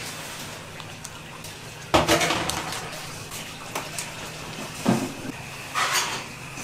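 Kitchen clatter of a pot, utensils and containers: a sharp, loud clank about two seconds in that rings off briefly, then lighter knocks and a clatter near the end, over a steady low hum.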